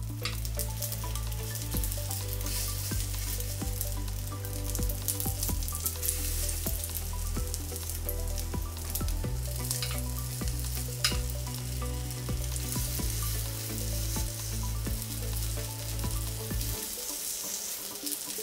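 Egg-battered rice-paper rolls sizzling steadily in oil in a small rectangular frying pan, with a couple of sharp clicks as chopsticks turn them. Background music with a low bass line plays underneath and stops near the end.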